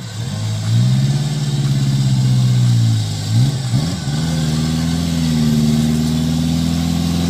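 Small off-road 4x4's engine revving, held high twice with a brief dip in between, as it strains to climb out of deep mud on a taut winch line.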